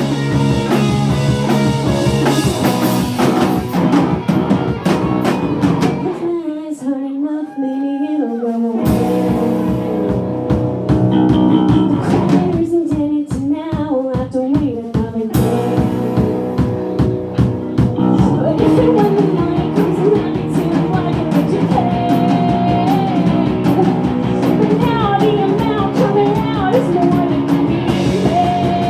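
Live rock band playing a song with drum kit, guitar and singing. About six seconds in, the instruments drop out for a couple of seconds and leave a lone sung line. The band then builds back in, with the full band back by about halfway through.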